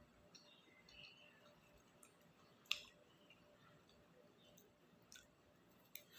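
Faint eating sounds from close up: quiet chewing with a few small mouth or utensil clicks, and one sharper click about halfway through.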